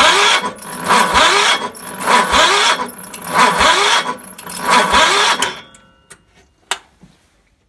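Kohler K321 single-cylinder engine cranked over by its electric starter during a compression test. It turns in five even, labouring surges about a second apart, rising briefly in pitch each time, then stops about six seconds in, followed by a sharp click. The gauge reads only about 58 psi, which the owner puts down to the compression release kicking in.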